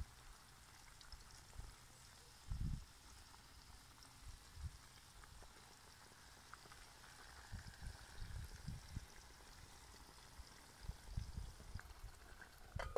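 Faint sizzling and bubbling from a pot of stuffed eggplant over a wood fire as red sauce is poured in, with a few low bumps. A metal lid clinks onto the pot at the very end.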